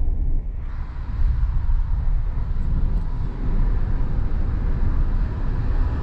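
Low, steady rumble of a car driving, heard from inside the cabin: road and engine noise. A lighter hiss joins under a second in.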